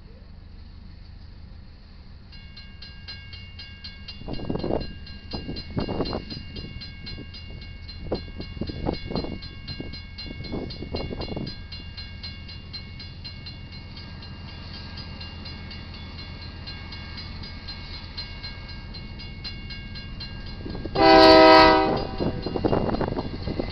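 A grade-crossing bell begins ringing about two seconds in, over the low rumble of a Union Pacific GE AC44CW diesel freight train, with several loud thumps from the train in the first half. Near the end the locomotive sounds one short, loud horn blast.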